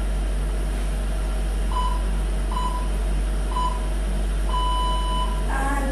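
Workout interval timer counting down: three short beeps about a second apart, then one long beep of about a second at the same pitch, marking the end of an exercise interval. A steady low hum runs underneath.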